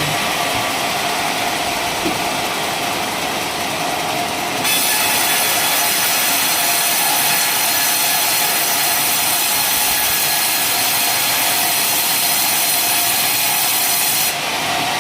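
Sawmill saw running with a steady hum. About a third of the way in it gets louder and hissier as the blade cuts through coconut-palm wood, and it drops back shortly before the end.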